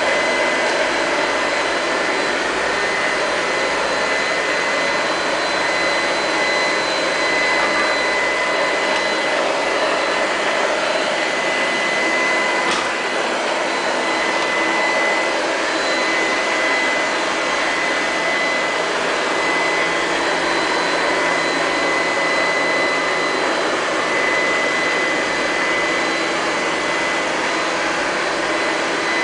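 Liectroux Q5 robot vacuum cleaner running: steady motor and fan noise with a constant high whine, and a single click about halfway through.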